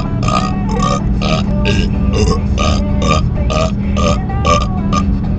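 A man burping repeatedly, over music with a steady beat of about two a second.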